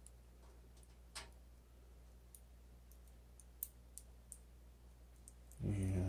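Faint, scattered small plastic clicks and ticks from fingers working the front-panel power LED wire plugs onto a Gigabyte G Connector block, with one slightly louder click about a second in and another past halfway.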